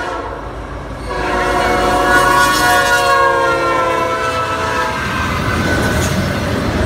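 A Norfolk Southern freight locomotive's horn sounds a chord of several steady notes from about a second in, sagging slightly in pitch as the locomotive passes. It stops about a second before the end, giving way to the rumble and clatter of double-stack intermodal container cars rolling by.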